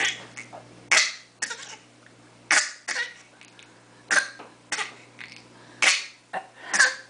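A five-month-old baby's deliberate fake coughs: about ten short coughs, some single and some in quick pairs, spread over several seconds.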